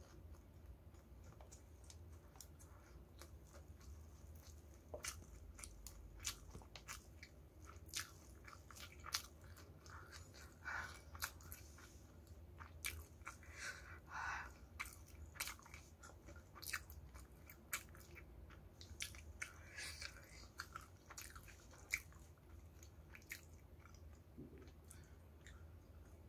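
Close-miked chewing of crispy battered fried chicken and rice: irregular small crunches and wet mouth clicks.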